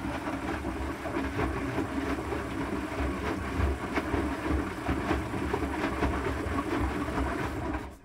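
Asko 12605 front-loading washing machine running a rinse, its motor turning the drum with the wet towels and mop tumbling in a steady, uneven clatter. The machine stops abruptly near the end.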